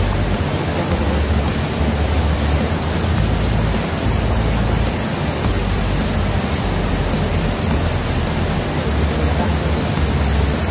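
Steady rushing noise of flowing river water, with an uneven low rumble underneath.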